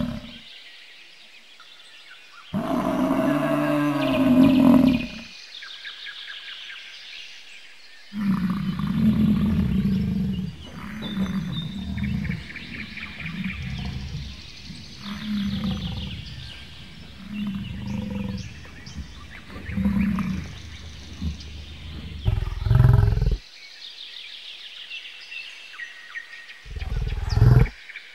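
American bison vocalizing: a long bellowing roar a few seconds in, then a run of short grunts every second or two, and two deeper, louder bellows near the end.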